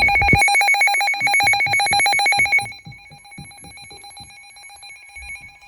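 Electronic alert tone from a NOAA Weather Radio broadcast, announcing a flash flood warning. It is a loud, fast-pulsing ring at several steady pitches that drops sharply in level about three seconds in and goes on faintly.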